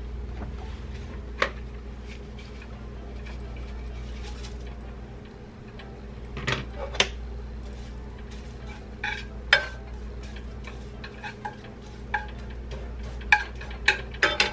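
Spatula scraping and knocking against a nonstick frying pan as diced raw chicken is stirred, in scattered clicks that come more often in the second half. A steady low hum runs underneath.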